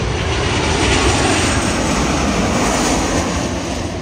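Alaska Airlines Boeing 737 on final approach with gear down, passing low overhead: a loud, steady jet-engine roar, loudest about a second in and easing slightly near the end.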